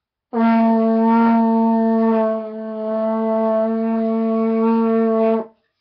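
French horn sounding a single sustained note, held about five seconds at a steady pitch, with a brief dip in loudness midway.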